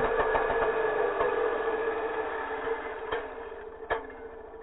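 Two-stroke chainsaw engine idling with a fast, even putter, slowly getting quieter. A couple of sharp knocks come about three and four seconds in.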